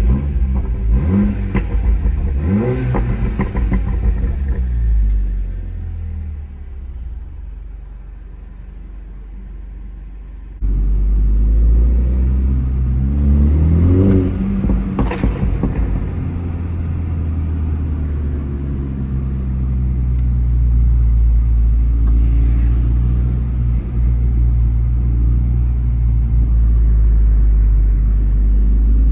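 Mini John Cooper Works F56's turbocharged four-cylinder engine and exhaust under hard acceleration, the pitch climbing steeply then easing off. About ten seconds in the level jumps, the engine climbs steeply again, then it runs at a steady drone at speed.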